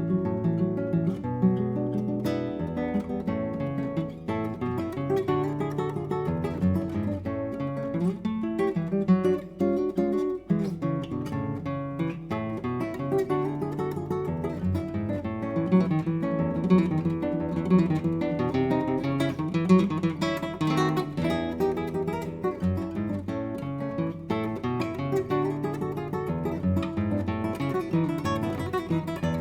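Solo acoustic guitar playing a gato, an Argentine folk dance, with a plucked melody over bass notes and chords, some of them strummed, played continuously.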